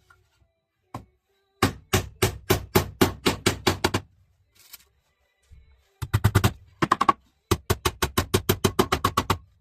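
Hammer driving 2-inch nails into the wooden planks of a beehive super box: a single tap about a second in, then three runs of quick blows, about five or six a second, with short pauses between.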